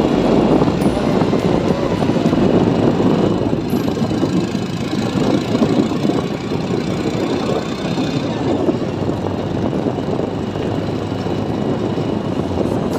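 Motorcycle running steadily on the move, with wind rushing over the microphone.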